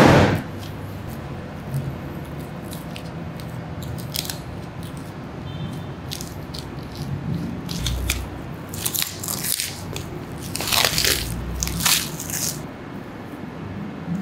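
Butcher's knife slicing through raw beef fat and meat along a carcass's ribs: a series of short scraping, crunching strokes, thickest in the second half. A loud thump at the very start.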